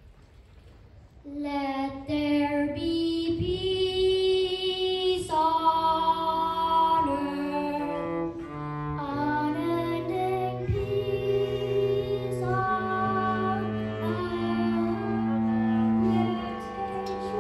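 School string orchestra of violins and cellos playing slow, held chords, with a children's choir singing along. The music starts about a second in, after a brief hush.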